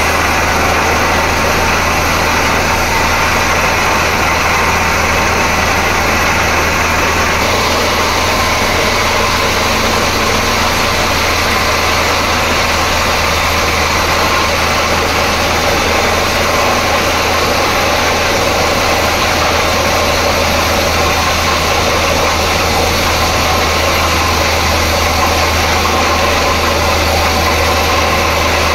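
Borewell drilling rig running steadily at 6.5-inch bore drilling: a loud, even machine noise with a constant low hum.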